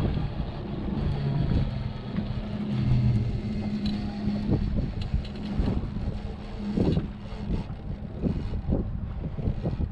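Boat engine running at low speed with a steady hum, under wind buffeting the microphone and scattered knocks.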